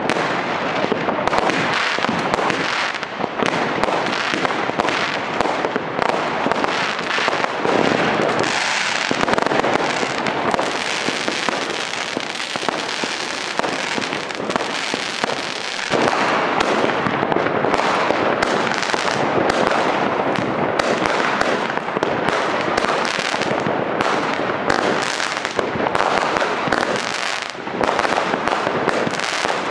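Many fireworks going off at once: a dense crackle of pops and bangs from bursting rockets and shells, without a break.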